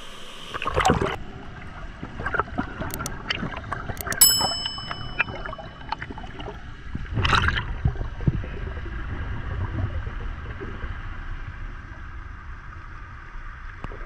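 Water splashing and sloshing around the camera as it goes below the surface of a waterfall's plunge pool, then a muffled underwater rushing. About four seconds in there is a single bright metallic ding that rings on briefly.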